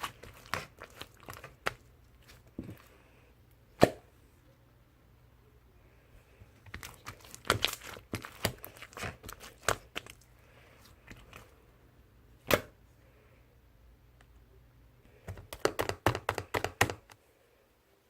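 Marbled slime being squished and stretched: clusters of sticky clicks and pops with a few single sharp pops, stopping about a second before the end.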